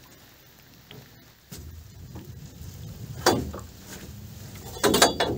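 A gill net being hauled by hand into a small boat: knocks and clatter of the net and its weights against the hull, with sharp knocks about three seconds in and again near the end, after a muffled, quiet first second and a half.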